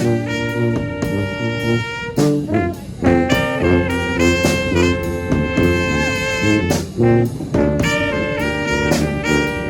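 A four-horn brass band playing a tune in held chords with moving parts, with sharp drum hits marking the beat.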